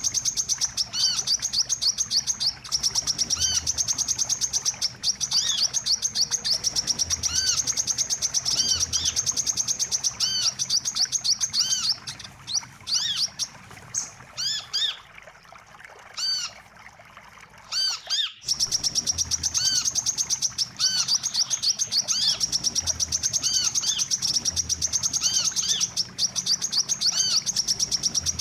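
Lure recording of a sunbird ('wiceh') call: a rapid, high-pitched twittering trill of fast repeated notes. Midway it thins out for several seconds into scattered separate notes, then the fast trill resumes.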